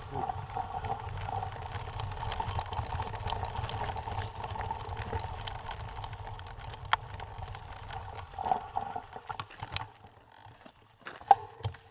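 Mountain bike rolling over a loose gravel and stone track: a steady rumble of tyres on stones with scattered sharp clicks and rattles from the bike. It eases off and goes quieter about ten seconds in as the pace drops, leaving only separate clicks.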